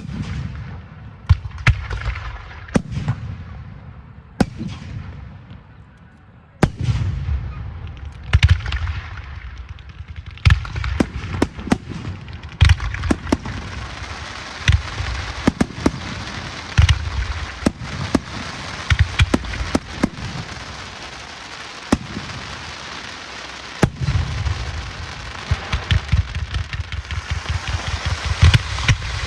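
Fireworks going off: a string of sharp bangs with deep booms, irregularly spaced. From about fourteen seconds in, a steady crackling hiss runs under the bangs.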